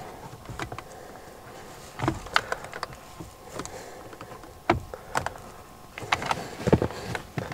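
Scattered light clicks and taps of hard plastic being handled as the BMW F30 dashboard display's cable connector is pressed and worked free.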